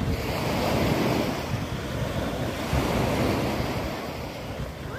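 Small waves lapping and washing up a sandy shore, the sound swelling and easing, with wind blowing on the microphone.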